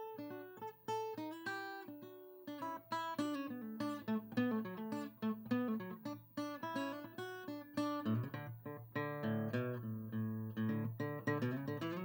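Background music of picked acoustic guitar, a run of single plucked notes; about eight seconds in, lower notes join and the playing grows fuller.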